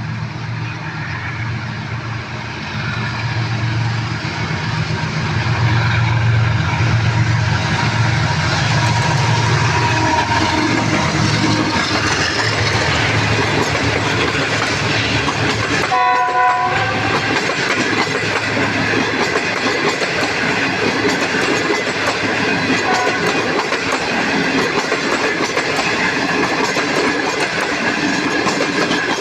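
A heavy diesel locomotive's engine drone builds over the first few seconds into the steady clatter of a train running past on the rails. A short horn note sounds about halfway through.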